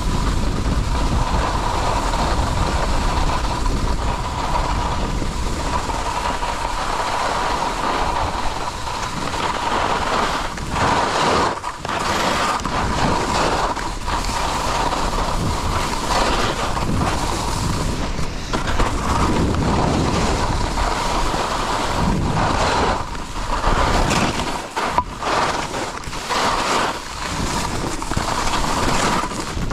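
Skis sliding over the snow on a downhill run, with wind rushing over the microphone; the noise dips briefly twice, about twelve seconds in and near twenty-five seconds.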